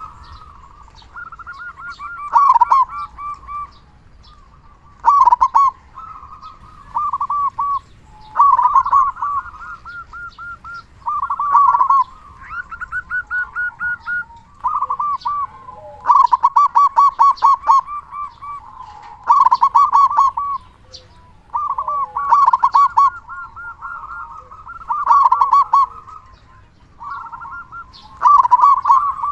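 Zebra dove (perkutut) cooing loudly: phrases of rapid stuttering coos, repeated every two to three seconds.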